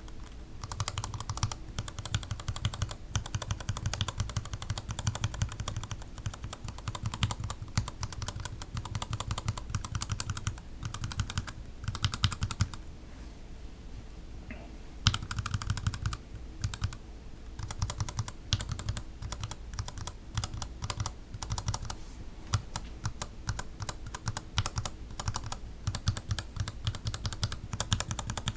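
Mechanical keyboard fitted with Gateron Yellow linear switches, a mix of milky and black-bottomed housings, typed on in a rapid, continuous stream of key clacks. There is a pause of about two seconds near the middle.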